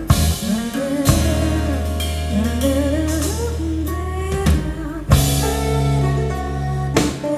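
Band music playing: an instrumental passage of a song with drums, bass and guitar, with a short break in the bass about five seconds in.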